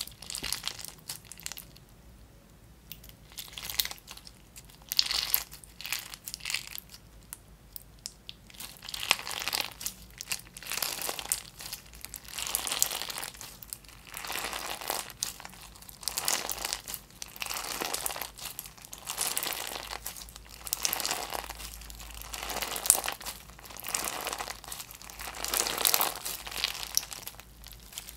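Clear slime packed with small plastic beads being squeezed, folded and stretched by hand, the beads crunching and clicking in short bursts. The bursts are sparse for the first eight seconds or so, then come almost without pause.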